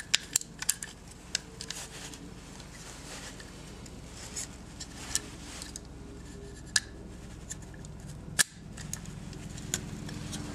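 Small, sharp metal clicks and light scraping from a trigger pivot pin and spring being worked into a Ruger 22/45's polymer grip frame, over a low steady hum. The clicks come scattered, several in the first second and a louder one past the middle.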